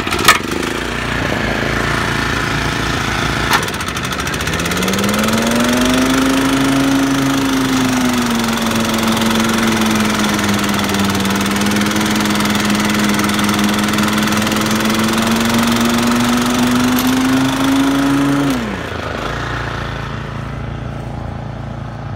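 Toro Turfmaster 30-inch walk-behind mower's Kawasaki FJ180V single-cylinder engine running at full throttle, cutting and side-discharging long grass, loud. A whine rises in about four seconds in, holds for some fourteen seconds and drops away sharply, with a couple of short knocks early on.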